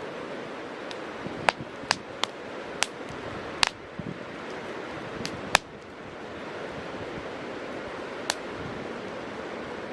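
Wood campfire burning in strong wind: a steady rushing of wind and flame, with several sharp crackles and pops from the burning wood, most of them in the first six seconds.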